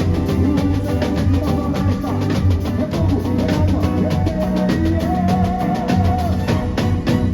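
Loud live music: drums and percussion playing a fast, dense, steady rhythm under a melody line.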